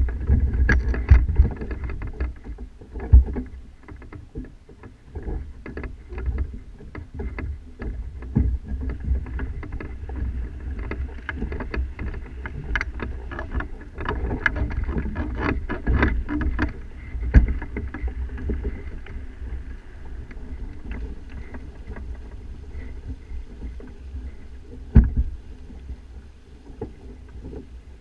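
Sailing kayak heard from a camera mounted at the top of its mast: a steady low rumble with irregular sharp knocks and clicks from the mast, sail and rigging as the boat moves.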